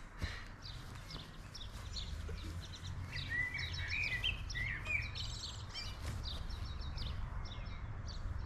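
Birds chirping, many short calls overlapping, busiest around the middle, over a steady low rumble.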